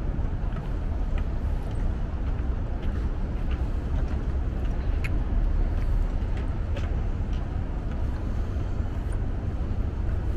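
Steady low rumble of road traffic, picked up by a small camera's built-in microphone, with faint scattered ticks of footsteps on a wooden boardwalk.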